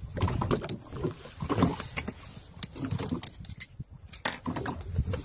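Knife blade scraping and prying barnacles off a young sea turtle's shell, heard as a run of sharp clicks and scratches.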